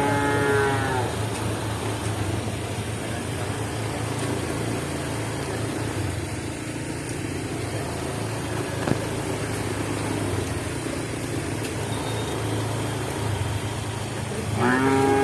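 Cow mooing: one long, level call that fades out about a second in, and a second call starting near the end. A steady low rumble runs underneath between the calls.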